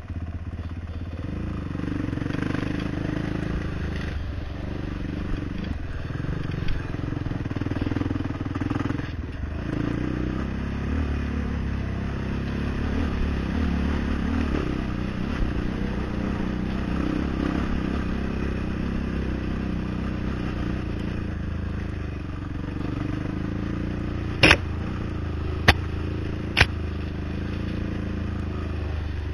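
ATV engine running as the quad rides along a rough dirt trail, its note rising and falling with the throttle. Three sharp knocks come close together near the end.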